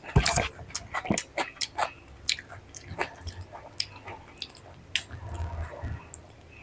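Close-miked chewing and biting of food: a string of quick, irregular mouth clicks and smacks, the loudest just after the start.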